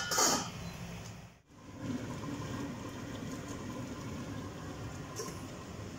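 A pot simmering on an induction hob, a steady bubbling hiss, with a brief metallic clatter at the start as the stainless lid is handled. The sound cuts out for a moment about a second and a half in.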